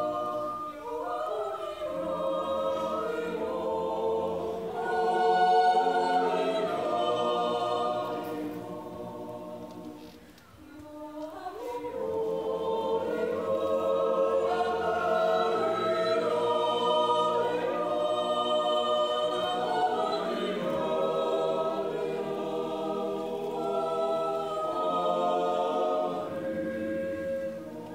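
A Swiss yodel club choir singing a cappella in sustained, full chords, with a brief break for breath about ten seconds in.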